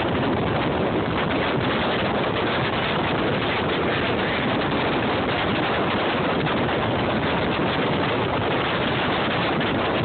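Strong wind blowing across the microphone on an open fishing boat in rough, choppy water: a steady, loud noise.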